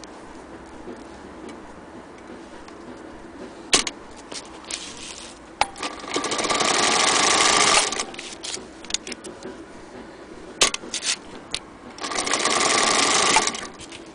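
Singer Featherweight Model 221 sewing machine stitching in two short runs of about two seconds each, about six seconds in and again near the end. Between the runs there are a few sharp clicks and small ticks.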